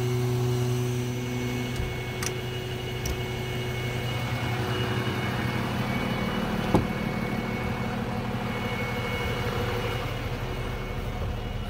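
Freightliner truck engine idling steadily with the PTO engaged to drive the leveling system's hydraulic pump: a steady drone with a faint higher whine. A couple of light clicks and, about seven seconds in, a single sharp knock.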